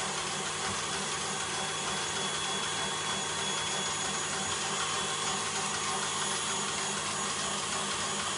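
A small motor running steadily, a constant whirring hum that does not change.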